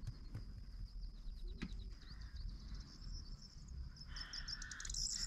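Steady high-pitched insect chirring, with quick bird chirps joining near the end and a soft rustle about four seconds in.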